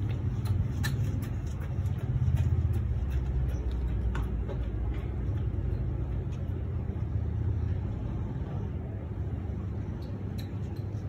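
Low, steady outdoor rumble, a little louder about two seconds in, with a few faint ticks over it.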